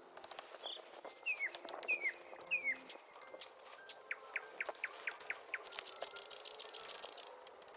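Birds chirping. About a second in come three short calls that slide down in pitch, then a quick run of about seven descending notes, then a high buzzy trill near the end. Faint scattered clicks sit underneath.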